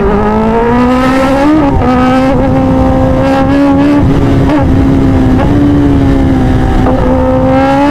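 Kawasaki ZX-10R's inline-four engine pulling hard under acceleration, its note climbing over the first second or so, with brief wobbles about two seconds in, then holding a steady high pitch at speed.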